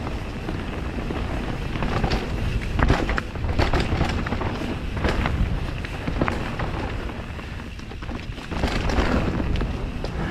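Mountain bike riding down a rough dirt trail: wind buffeting the microphone and tyres rumbling over the ground, with frequent short knocks and rattles from the bike over bumps.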